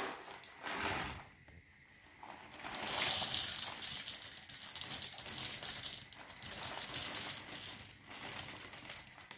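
Whole roasted coffee beans poured from a paper bag into the stainless-steel bowl of an electric blade coffee grinder, rattling against the metal as a dense stream of clicks that starts about three seconds in.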